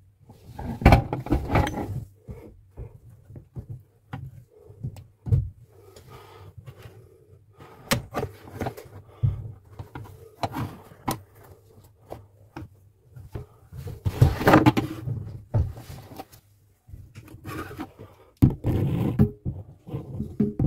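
Irregular knocks, scrapes and rustling as hands work the plastic fittings, hoses and metal fixing bracket of a kitchen mixer tap under the sink, with sharp clicks here and there and longer bouts of scraping about a second in, midway and near the end.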